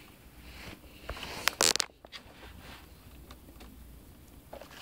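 Hands and a screwdriver working on a netbook's plastic casing: a few light clicks, then one short, loud scrape about a second and a half in, followed by faint ticks.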